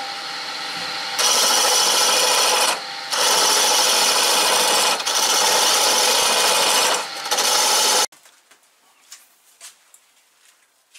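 A lathe spinning a wooden spindle while a hand-held turning tool cuts into it, throwing shavings: a loud scraping rush in several passes with short breaks, stopping abruptly about eight seconds in.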